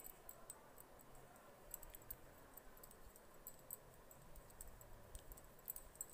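Faint, irregular light clicks and rustle of a metal crochet hook working cotton thread, close to near silence.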